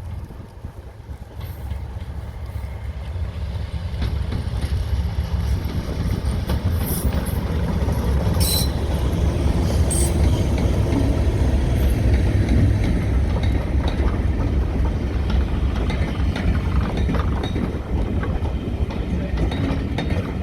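Heritage diesel train running close by, its heavy low engine rumble building over the first few seconds and staying loud, with a few sharp metallic clinks from the wheels and rails around the middle.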